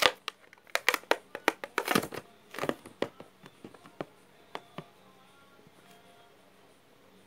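Hands squeezing and kneading a soft orange squishy ball, giving a quick run of sharp clicks and crackles over the first three seconds that thins to a few single ticks.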